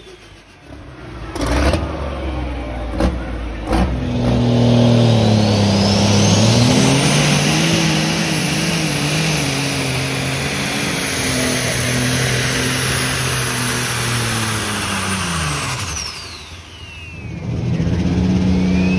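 Turbocharged diesel pulling-tractor engine running hard. A few sharp cracks come in the first four seconds. From about five seconds in, a high turbo whistle rises, holds steady, then falls away around sixteen seconds in as the engine throttles down. The engine revs up again near the end.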